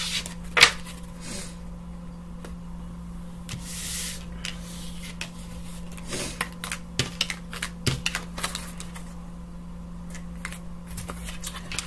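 Tarot cards being gathered up off a wooden table: a string of light clicks and taps as the cards are picked up and knocked together, with one sharper click about half a second in and a short sliding swish around four seconds in. A steady low hum runs underneath.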